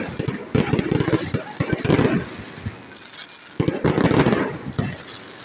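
Aerial fireworks going off: dense volleys of crackling pops from glittering crackle-star bursts, one through the first two seconds and another from about three and a half seconds in, with a quieter lull between.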